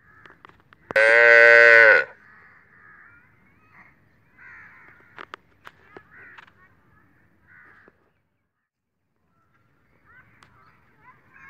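A calf moos once, a loud call lasting about a second, steady in pitch. Faint bird calls and a few sharp clicks follow.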